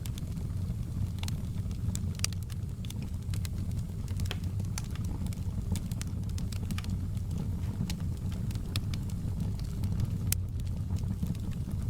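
Fireplace fire crackling, with irregular sharp pops and snaps over a steady low rumble of flames.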